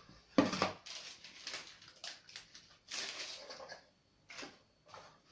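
Clear plastic parts bag crinkling and rustling in irregular bursts as parts are handled and taken out, with the sharpest crackle about half a second in.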